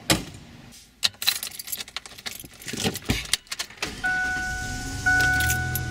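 A car door slams shut, then keys jangle and click as a key goes into the ignition. About four seconds in, as the key is turned, a steady high dashboard warning tone sounds over a low hum, which grows louder about a second later.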